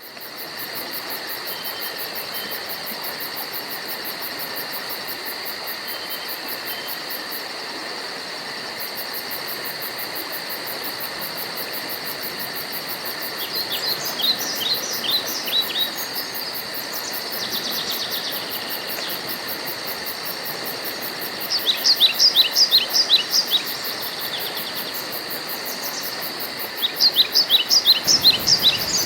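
Steady insect chorus, a high, fast, even pulsing trill over held buzzing tones. A songbird cuts in three times, at about 14, 22 and 27 seconds in, each time with a quick run of sharp, repeated, downward-sweeping notes that are the loudest sounds.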